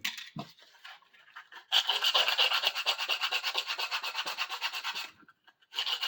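Rapid back-and-forth hand sanding of the bar clamp's handle with sandpaper to take off old glue: a fast, even rubbing at about eight strokes a second, after a couple of small knocks, stopping briefly about five seconds in and then starting again.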